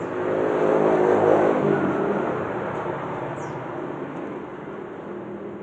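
A motor vehicle engine passing by, growing louder to about a second in and then fading away.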